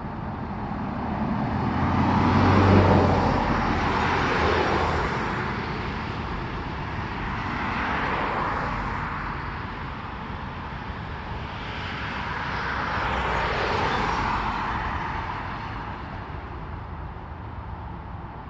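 Road traffic passing: several vehicles go by one after another, each a rush of noise that swells and fades over a few seconds, the loudest about three seconds in.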